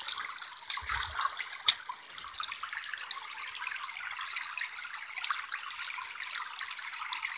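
Shallow creek water trickling steadily over gravel and rocks, with a soft bump and a short click within the first two seconds.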